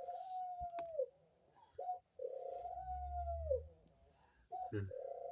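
A pet dove cooing in repeated phrases, each a short note followed by a long drawn-out note that drops away at the end.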